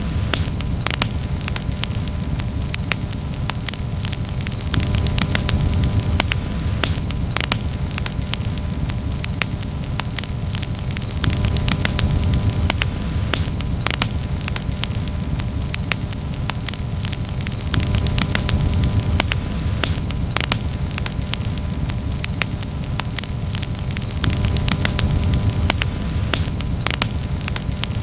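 Wood campfire crackling steadily, with many sharp pops and snaps over a low, steady rumble of the flames.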